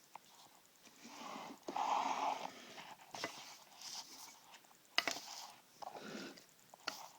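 Handling noise from a cheap plastic-handled folding knife being turned over in the hands: rubbing and scraping with scattered clicks, a louder rustle about two seconds in and a sharp click about five seconds in.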